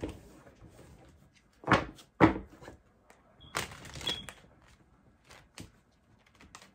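Two dull knocks about half a second apart, then a short rustle and a few small clicks: a deck of tarot cards and its box being handled.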